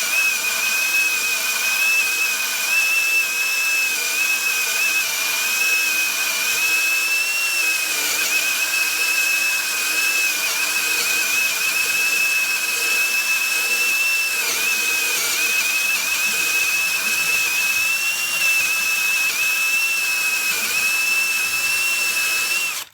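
DeWalt DCD995 cordless drill on low speed driving a Milwaukee hole saw through a workpiece, its motor whining steadily under load with slight wavers as the saw bogs. It cuts off suddenly at the end. The hole saw is cutting slowly, which the user blames on the hole saw, not the drill.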